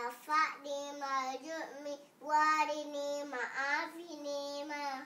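A young girl chanting Muslim prayer recitation in long, drawn-out notes, with a short pause about two seconds in.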